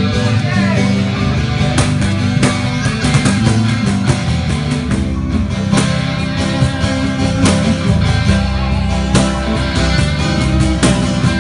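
A live band playing loud music with guitar, punctuated by sharp percussive hits.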